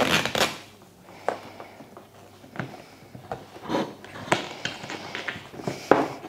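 Handling noise as red plastic backing film is peeled off double-sided tape and a rubber trim strip is pressed onto a chrome trim: rustling with a few light clicks and taps.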